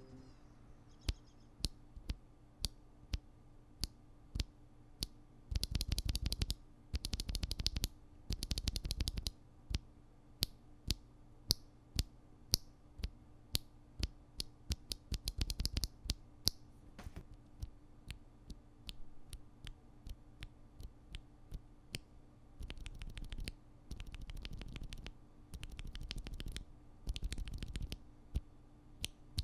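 Akko tactile mechanical keyboard switches (Creamy Purple Pro and Lavender Purple) pressed by hand out of a keyboard, clacking. Single presses come about two a second, broken by several quick rattling bursts of rapid presses.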